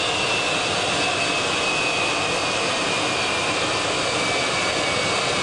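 Jet turbine running on a parked Tupolev Tu-22M3 bomber: a steady rush of noise with a high whine that slowly falls in pitch.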